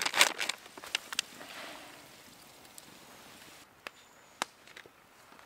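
Brown paper bag crinkling as hands fold and crimp its greasy top shut, dense crackling for about the first second. Then much quieter, with a few single sharp snaps about four seconds in.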